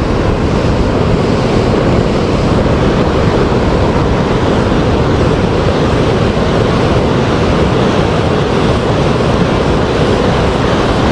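Ocean surf breaking and washing over a pebble beach: a steady, loud rush of water noise.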